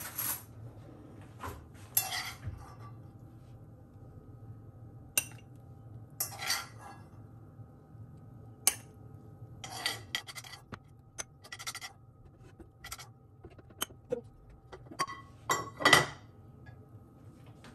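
Thick chocolate cake batter being scraped out of a stainless steel bowl into small glass yogurt jars: a series of short metal scrapes and clinks against metal and glass, the loudest near the end.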